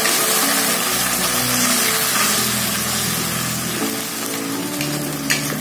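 Tomato and chili sauce, thinned with a little water, sizzling in a wok while a metal spatula stirs it. A brief scrape of the spatula comes near the end.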